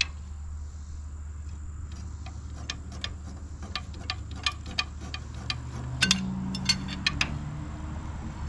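Irregular light metallic clicks and clinks, a few a second, as a long steel bar works the stuck valves and springs of a 1922 Fordson tractor engine loose. The sharpest clicks come about six to seven seconds in, over a steady low hum.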